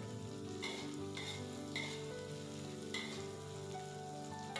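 Garlic, shallots, chilies and dried anchovies sizzling in hot oil in an aluminium wok, with a metal wok ladle scraping across the pan in about four short strokes. Faint background music plays underneath.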